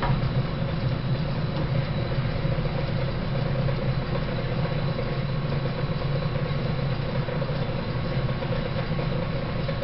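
Antique Gray metal planer running with a steady mechanical hum as its table strokes the mild-steel workpiece under the tool. The tool is just starting its first light cut.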